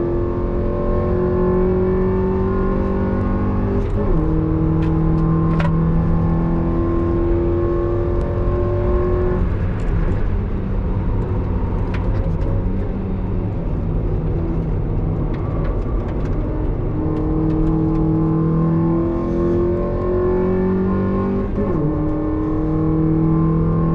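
Mazda NB Roadster's four-cylinder engine heard from inside the cabin on a hot lap, pulling hard with its pitch climbing, dipping briefly about four seconds in and again near the end. Around ten seconds in the engine note drops away into a rougher, lower spell, then climbs again from about seventeen seconds.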